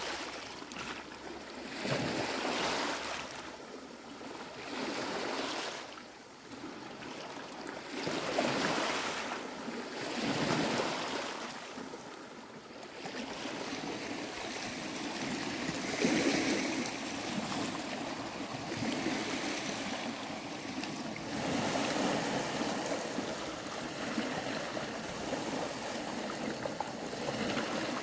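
Small sea waves washing and lapping against a rocky shore, swelling and fading every two to three seconds, then settling into a steadier wash.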